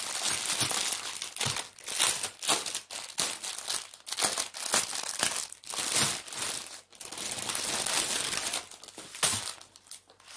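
Clear plastic wrap crinkling and rustling in irregular bursts as it is pulled and crumpled off a rolled bundle of small plastic bags of diamond painting drills.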